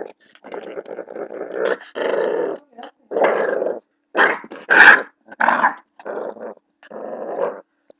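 Blue pit bull puppy growling in a string of short bursts while play-fighting with a hand, the loudest and sharpest burst about five seconds in.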